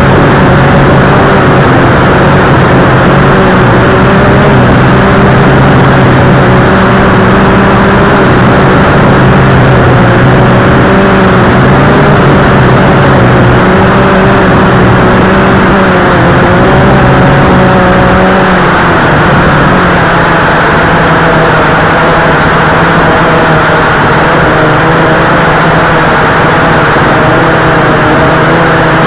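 Blade 350QX2 quadcopter's electric motors and propellers whirring, heard from the camera mounted on the craft. The hum wavers throughout and shifts in pitch about two-thirds of the way through as the motors change speed.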